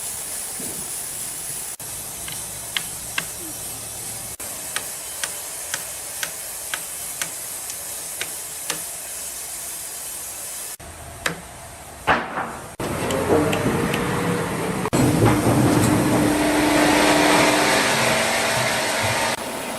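Sawmill machinery running with a steady hiss, broken by abrupt cuts between shots. A run of sharp clicks comes about two a second in the first half. In the second half there is louder machine noise with a steady hum.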